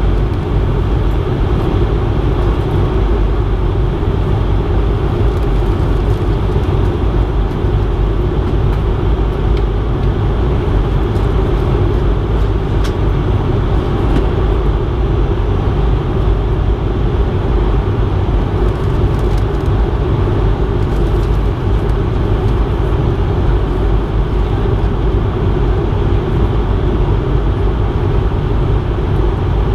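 Steady cabin noise inside a Bombardier CS100 airliner: its Pratt & Whitney PW1500G geared turbofans and the airflow past the fuselage, a constant low noise with no change in level.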